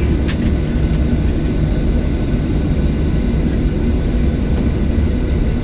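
Steady low rumble of a Boeing 737-700's jet engines and airflow heard inside the passenger cabin, with faint steady whining tones above it.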